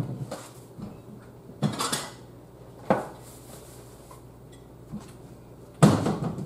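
Clatter of dishes and cutlery: a plate and fork being picked up and handled, a few separate sharp clinks and knocks, the loudest one near the end.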